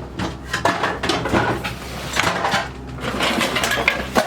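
Vintage sewing machine parts being rummaged through and lifted out of a box: repeated clinks, knocks and rattles with rustling between them.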